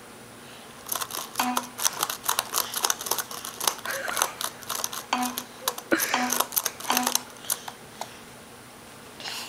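Laptop keyboard keys clattering under a baby's hands, a quick, irregular run of clicks and taps that starts about a second in and stops about a second before the end.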